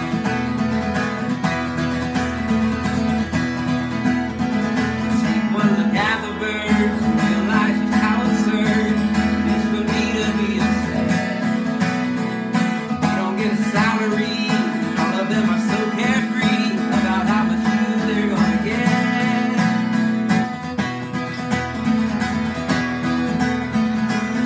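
Acoustic guitar in DADGAD open tuning playing an instrumental passage of picked and strummed chords over ringing low drone strings.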